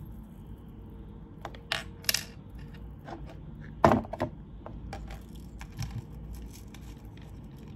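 Handling of a small cardboard jewelry box and its lid on a desk: a few sharp knocks and clicks, the loudest about four seconds in, followed by faint light clinks of metal chain necklaces being lifted out of the box.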